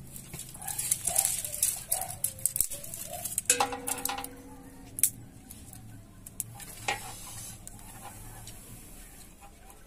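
Dry firewood twigs being handled and fed into a wood cooking fire: a run of clicks and crackles, with a short metallic ring about three and a half seconds in, then only scattered ticks.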